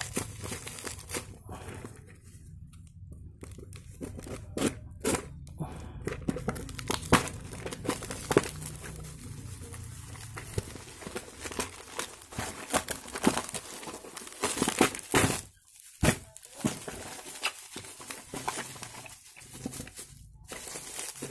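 Cardboard packaging and bubble wrap being pulled open and handled: irregular tearing, crinkling and crackling, with a few brief pauses.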